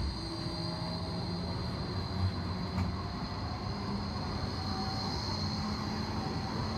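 Bombardier Flexity low-floor electric tram rolling past close by and moving away along street track, running with a low hum and a steady high-pitched whine.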